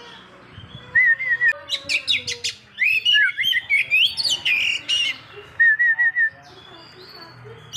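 Oriental magpie-robin (kacer) singing loud, varied whistled phrases. A quick repeated warbling trill comes about a second in and again near six seconds, with sharp high sweeping notes and gliding whistles between them.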